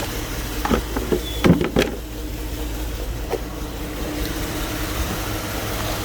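2008 GMC Yukon's 5.3-litre V8 idling with a misfire, traced to a burnt injector fuse that had been bridged with a piece of wire. A few sharp clicks come about a second in and once more near the middle.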